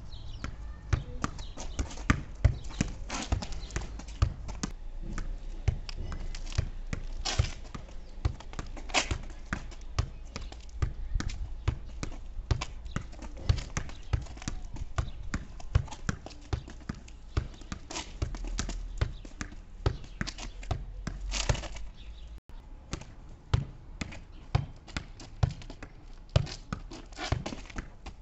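Volleyball bumped again and again in forearm passes against a concrete wall: a steady run of sharp slaps and thuds, ball on forearms and ball on wall, about two to three a second.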